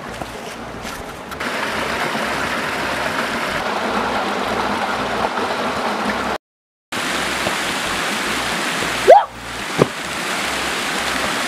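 Mountain stream rushing steadily over rocks. It cuts out completely for about half a second after six seconds. About nine seconds in come two short, loud sounds, the first with a sliding pitch.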